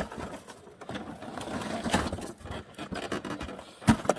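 Arctic Cat Alpha snowmobile being heaved back upright from its side in packed snow: irregular scuffing, crunching and clattering, with a heavy thump near the end as it comes down onto its track.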